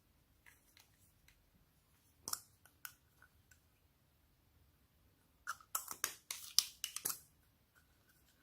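Homemade slime being squeezed and worked by hand, giving sticky crackles and pops: two sharp pops a little after two seconds in, then a dense run of loud crackling pops for about two seconds near the end.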